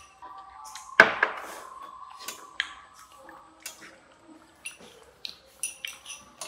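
Table utensils (a spoon and chopsticks) clinking against ceramic bowls and dishes. One sharp clink about a second in rings on briefly, then a string of lighter taps and clicks follows.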